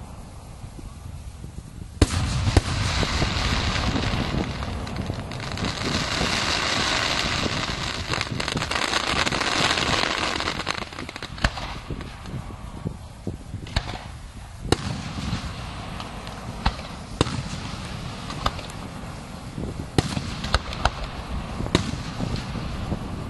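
Aerial fireworks display: a sharp bang about two seconds in, then several seconds of dense, continuous crackling, then scattered single bangs.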